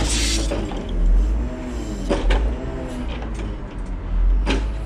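Knuckle boom crane truck's engine and hydraulics running while the grapple is worked from the control levers, the engine note rising and falling as the levers are moved. Three sharp knocks: near the start, about two seconds in, and near the end.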